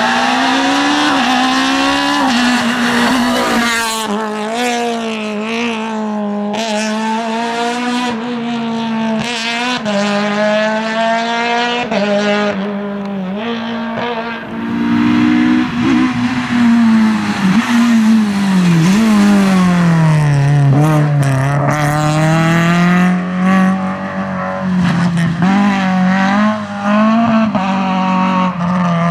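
Rally car engine at full attack, its revs rising and falling again and again through gear changes, sinking low about two-thirds of the way through and then climbing again, with tyres squealing.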